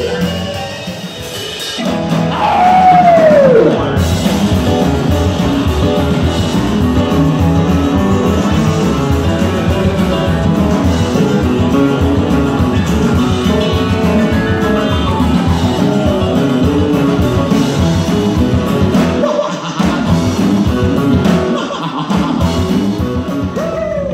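Live rockabilly band playing, with upright double bass, guitars, piano and drums under a singing voice. About two to three seconds in, a loud high note slides downward.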